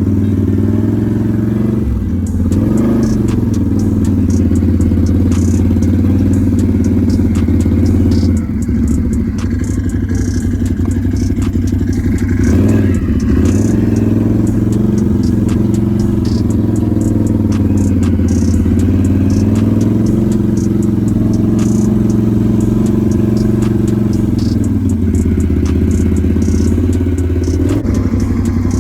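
Can-Am Renegade 1000R XMR ATV's V-twin engine running close by, its pitch wavering slightly as the revs drift, with a light clatter over it.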